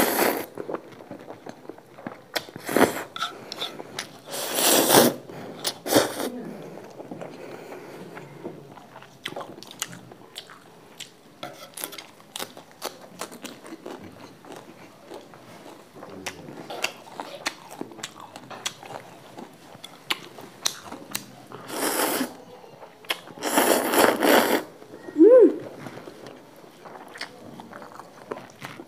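Close-miked eating of instant noodles: noisy noodle slurps at the start, a few seconds in, and twice more about three-quarters of the way through. Between them are chewing and small wet mouth clicks.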